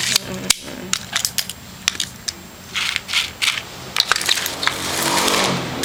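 Small metal upholstery nails and staples rattling and clinking in a plastic box and a wooden tray as they are handled, a run of sharp irregular clicks.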